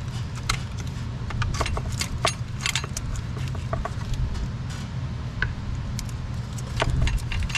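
Small sharp clicks and metallic clinks as electrical connectors are unclipped and handled in a diesel engine bay, in a quick run about two seconds in and again near the end, over a steady low background rumble.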